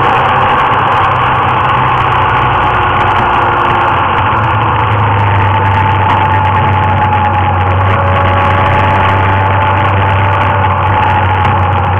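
Motorcycle engine running under way, with steady wind and road noise. The engine note drops a little about halfway through as the bike slows.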